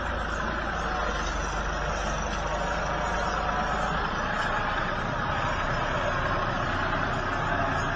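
Ford farm tractor's engine running steadily under heavy load, its front wheels reared off the ground as it hauls a trailer piled with sugarcane.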